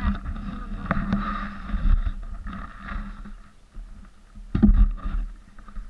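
Honda CRF80F dirt bike's small four-stroke single idling with a steady low note, under wind and handling noise on a helmet-mounted microphone. A brief loud burst comes about four and a half seconds in.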